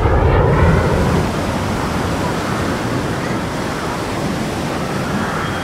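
Jet engine noise from a military fighter jet in flight display, a steady rushing roar that eases slightly after about a second.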